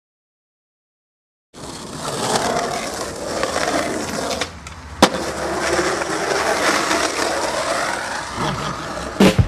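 After about a second and a half of dead silence, skateboard wheels roll on rough asphalt with a steady grinding rumble. One sharp clack of the board comes about five seconds in.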